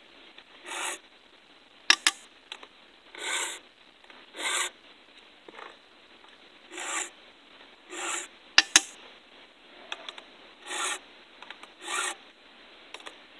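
Round chainsaw file in an Oregon file guide rasping across the cutters of a 3/8-pitch full-comp ripping chain: sharpening, with short scraping strokes that come mostly in pairs, two per cutter. Two sharp clicks come between the strokes, about 2 seconds in and near the middle, and they are the loudest sounds.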